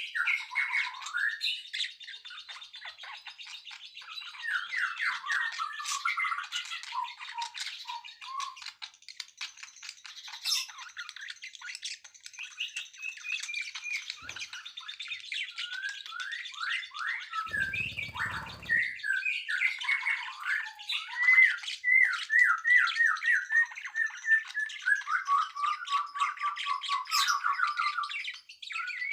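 Songbirds chirping and singing continuously, in fast runs of repeated notes and trills. A brief low rumble comes about two-thirds of the way through.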